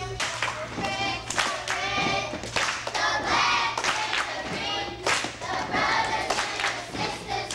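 A group of children singing together in chorus, with rhythmic hand clapping about twice a second.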